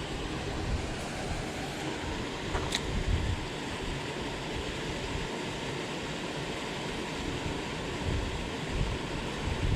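Steady wind noise on the microphone, with low gusty rumbles throughout and a single brief click about three seconds in.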